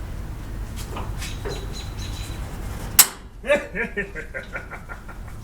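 A sharp crack as a seized grille screw on a 1972 Dodge B200 van breaks loose, then a quick run of short squeaks, about seven a second and fading, as the never-removed screw turns in its dry thread.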